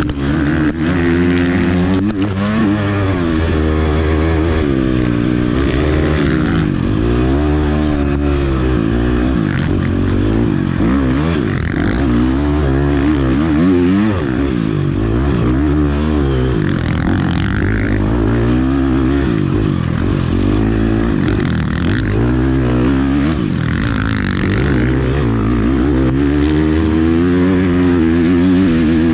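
Enduro dirt bike engine heard from on board, revving up and easing off over and over, its pitch rising and falling every second or two as the rider works the throttle and gears.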